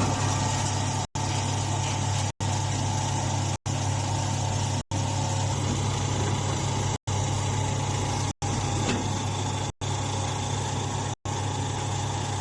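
Mini straw baler machine running steadily, a constant low mechanical hum with a noisy rattle over it. The sound cuts out for an instant every second or two.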